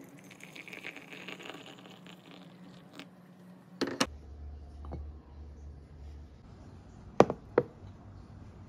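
Quiet room tone with a few sharp small knocks or clicks: a pair about four seconds in and another pair near the end.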